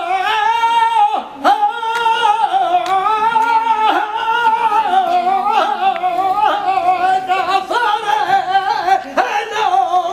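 A saeta: a solo voice singing unaccompanied in flamenco style, holding long notes with wavering ornaments and pausing briefly for breath a few times.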